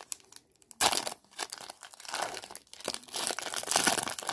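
Foil trading-card pack wrapper crinkling and tearing in the hands, starting loud about a second in after a few faint rustles.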